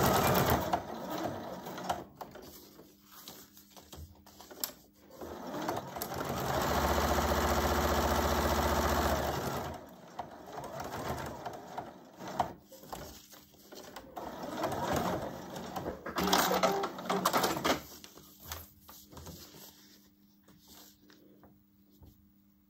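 Electric sewing machine topstitching in short runs: a burst at the start, a longer steady run of about three seconds in the middle, and a shorter one later. Between the runs come clicks and handling noise as the needle is left down, the presser foot lifted and the fabric turned at the corners, and it goes nearly quiet near the end.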